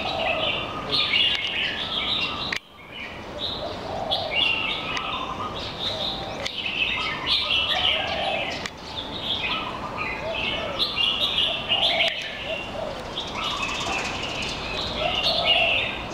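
Several caged small songbirds chirping and singing in short, overlapping, repeated phrases.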